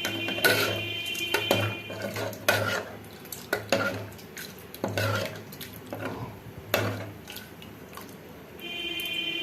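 A metal spoon stirring potato and pea curry in a pressure cooker pot, with irregular clinks and scrapes against the pot about once a second.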